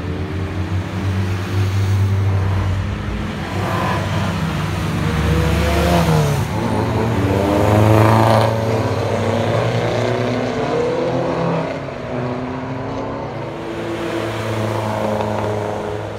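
Mini Cooper S race cars driving past one after another, engines running with pitch rising and falling. The loudest and closest pass comes about eight seconds in.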